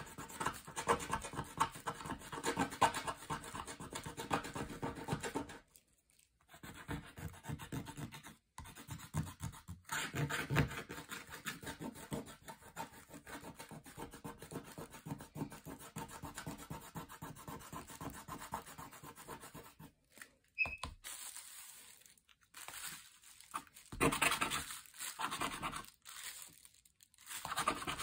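A small hand-held tool rubbing rapidly back and forth over a paper page, pressing rub-on transfer pictures into an activity book. It makes a continuous scratchy rasp that stops briefly a couple of times and turns stop-start in the last third.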